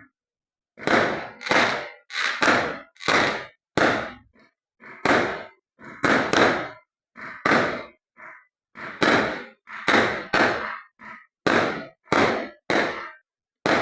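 Fireworks going off in a rapid series, about two bangs a second, each fading away within half a second.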